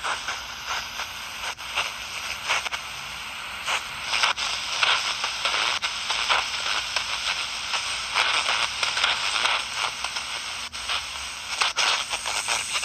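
Static from a 4732 miniature shortwave radio with poor reception: a steady hiss full of irregular crackles and clicks, with no station coming through.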